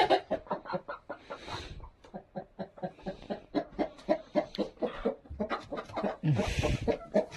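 Hens clucking in many short, repeated clucks. Two brief rustling sounds break in, about one and a half seconds in and again near the end.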